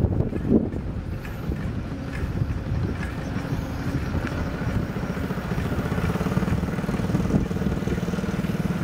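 Motorbike engine running steadily while riding along a road, its hum growing a little stronger in the second half.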